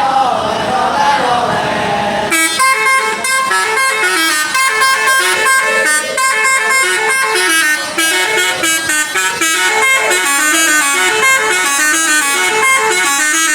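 Sinar Jaya bus's telolet horn, a set of air horns switched to play tunes, playing a fast melody of short stepping notes from about two seconds in. Voices are heard before the horn starts.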